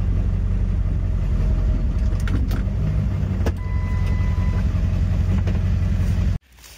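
Truck engine running, heard from inside the cab as a steady low rumble, with a few light clicks and a brief high tone about four seconds in. It cuts off suddenly near the end.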